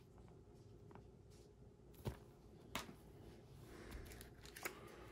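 Faint handling of a decal sheet in a clear plastic bag and a paper instruction booklet: soft crinkling and rustling with a couple of light ticks about two and three seconds in.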